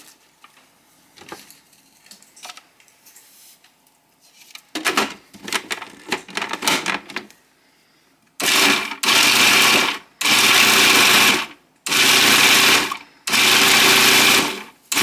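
Food processor pulsed in five short bursts of motor whirring, about a second each with brief gaps, lightly chopping spinach, carrots and kale. Some clattering of handling comes before the first pulse.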